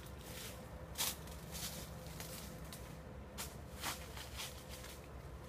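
Footsteps through dry scrub and brush, giving irregular crunches and snaps of twigs and leaves, about one a second.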